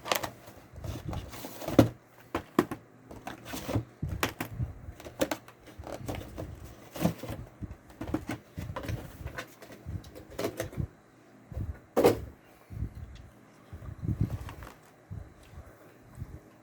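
Cardboard boxes and packaging being handled on a table: irregular taps, knocks and light rustles, with sharper knocks about two seconds in and about twelve seconds in.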